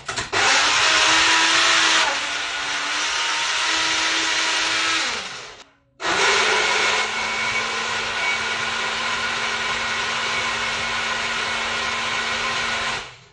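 High-speed blender running loudly, blending cooked pumpkin with milk into soup. It runs for about five seconds and winds down, stops briefly, then starts again for a second steady run of about seven seconds.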